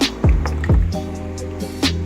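Background music with a hip-hop beat: deep bass hits that slide down in pitch, sharp snare strikes and sustained chords.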